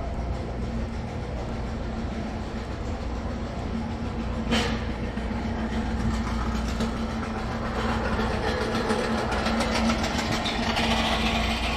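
Steady rolling rattle over a low hum, with a single sharp click about four and a half seconds in and the rattle growing busier in the second half.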